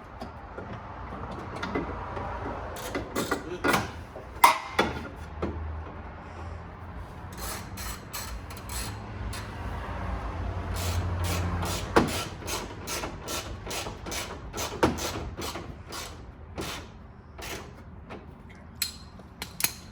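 Car parts and hand tools being handled during reassembly: irregular clicks, knocks and scraping of plastic and metal.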